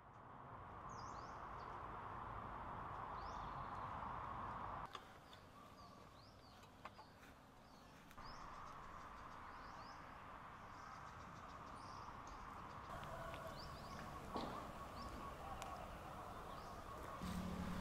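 Outdoor dusk ambience fading in: many short, high bird chirps over a steady insect hum. A steady low tone comes in near the end.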